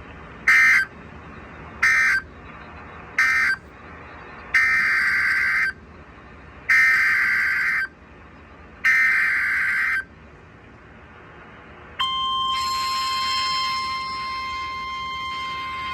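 Emergency Alert System SAME data bursts from a weather radio broadcast. Three short end-of-message bursts come about a second apart, followed by three longer header bursts of about a second each for the next warning. About 12 s in, the steady 1050 Hz NOAA Weather Radio alert tone begins.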